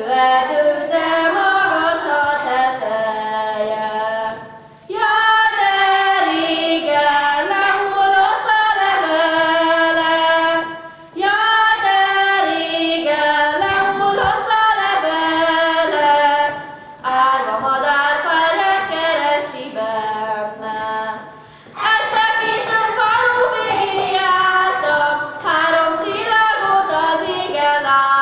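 A group of young girls singing a Hungarian folk song together without instruments, in phrases of about five seconds with short breaks between them: the self-sung accompaniment of a girls' circle dance (karikázó).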